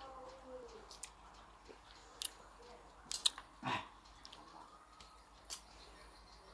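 Irregular small, sharp clicks and taps, about half a dozen, over faint background voices.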